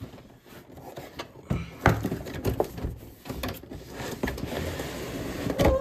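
Cardboard box and clear plastic packaging tray being handled and slid apart: rustling and scraping with scattered knocks, a louder knock near the end.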